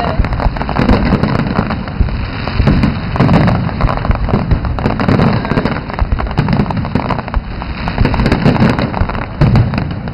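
Aerial fireworks bursting overhead in quick succession: a dense run of bangs and crackling that does not let up.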